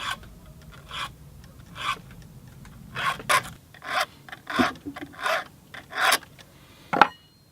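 Hand scraping strokes on the body of a vintage Stihl 08 S chainsaw during cleaning, about one rough stroke a second.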